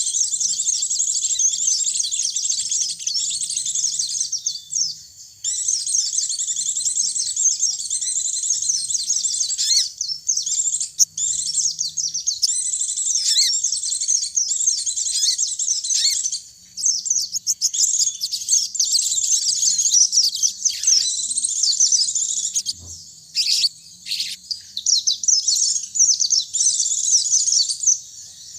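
Pleci (white-eye) and sogon songbirds singing a long, fast, high-pitched twittering song, chirps tumbling over one another with only a few brief pauses.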